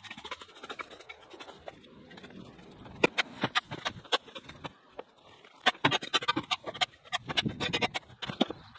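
A garden rake scraping and dragging through dry leaves, twigs and soil: irregular clicking and scratching strokes, busiest in two spells, a few seconds in and again over the second half.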